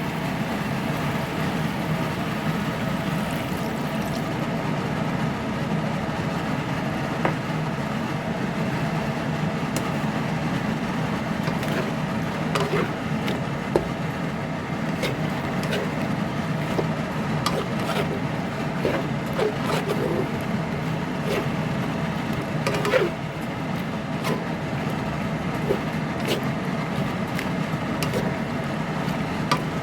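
Steady mechanical hum with scattered light clicks and taps of cooking utensils, most frequent in the second half.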